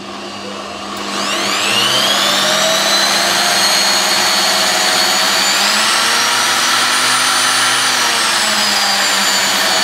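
Corded electric drill, clamped in a homemade wooden stand as a bench grinder, spinning a grinding wheel in its chuck and running free with nothing against the wheel. The motor winds up with a rising whine over the first two seconds, then runs steadily at high speed, its pitch rising a little about six seconds in as the speed control is adjusted.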